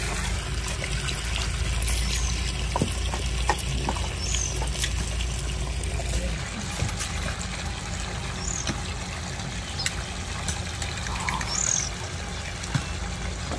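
Shallow water trickling and splashing while freshly dug taro corms are rinsed in a steel plate, with occasional light clicks as the corms and plate are handled. A few short bird chirps sound now and then.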